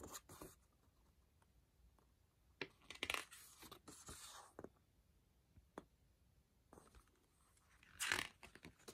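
Paper pages of a CD lyrics booklet being turned and flipped by hand: short papery rustles, with a longer flurry about three to four seconds in and the loudest page flip about eight seconds in.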